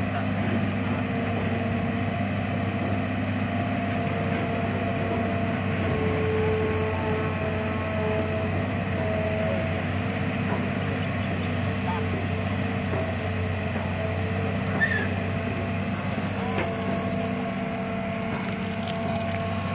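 Hitachi EX200-2 excavator's diesel engine running steadily with a continuous hum, working under load as the machine digs and swings its boom and bucket at a sand pile.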